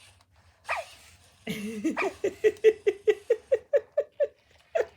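Sony Aibo ERS-1000 robot dog giving its electronic giggle through its speaker: a short falling chirp, then a quick run of about a dozen short even-pitched notes, about five a second.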